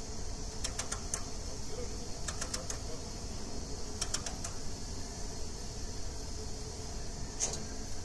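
Short clusters of three or four quick clicks, repeated about every one and a half seconds over a steady hiss: the band saw's blade-tensioning mechanism being worked as the blade is tightened.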